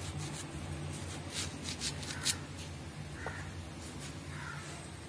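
Kitchen knife scraping and trimming a peeled raw banana by hand: a few short scrapes and clicks in the first couple of seconds, then quieter handling as the banana is set down on a plastic cutting board.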